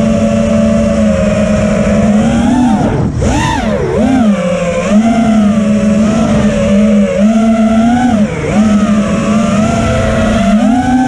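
The brushless motors and propellers of a 5-inch FPV quad (ImpulseRC Apex, iFlight Xing 2207 1800KV motors) whining in flight, as heard by its onboard camera. The pitch rises and falls with the throttle, with a sharp drop and punch about three seconds in.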